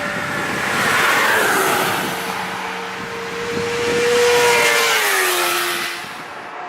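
Two cars passing at speed, the first about a second in and the second about four seconds in, each engine note dropping in pitch as the car goes by.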